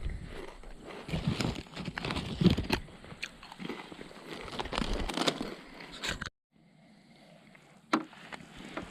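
Rustling, crunching and irregular clicking of camping gear being handled and unpacked. The sound breaks off abruptly about six seconds in, and fainter handling follows with one sharp knock near the end.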